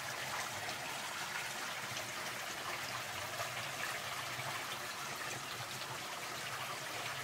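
Water trickling steadily in an abandoned mine working, an even hiss with no distinct events.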